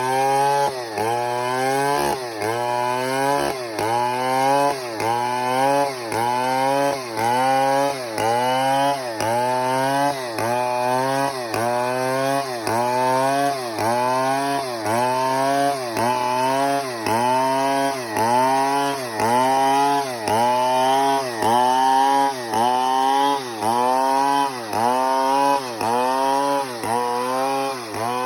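Large two-stroke chainsaw cutting wood at high revs, its engine note dipping under load and recovering in a steady rhythm a little more than once a second as the bar is worked through the cut.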